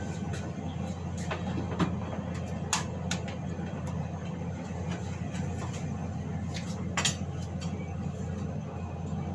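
Kitchen clatter: a few sharp clinks and knocks of pots and metal utensils, the loudest about seven seconds in, over a steady low hum.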